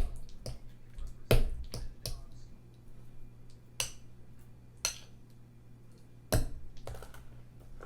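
Kitchen utensils knocking and clinking against a mixing bowl while a cup of brown sugar is scooped and added: about nine sharp, irregular taps over a low steady hum.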